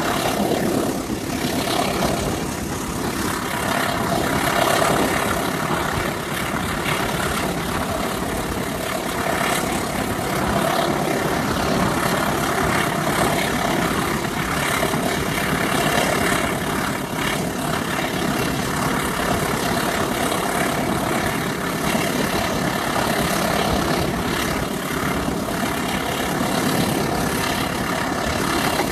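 A CC203 diesel-electric locomotive's engine running steadily under the even rumble and hiss of a moving train. There are no breaks or sudden events, and a faint steady high tone comes in around the middle.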